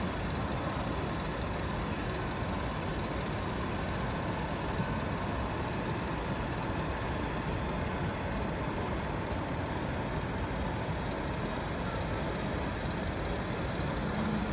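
Steady, even background noise of a busy exhibition hall: a continuous rumble with no distinct events.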